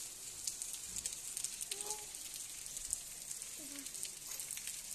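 Steady rain falling on a wet asphalt street: an even hiss with a dense patter of small drop ticks.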